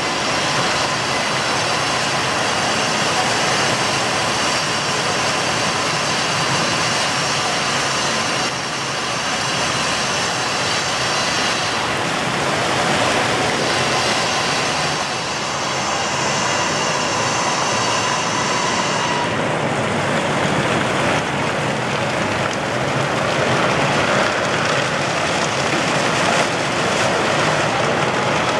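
Fountain jets falling into the water of the basin, a steady rushing splash. About two-thirds of the way through, the hiss loses some of its top end.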